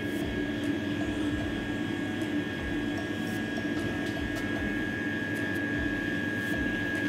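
Steady machine hum with a constant high whine, unchanging throughout, with a few faint clicks.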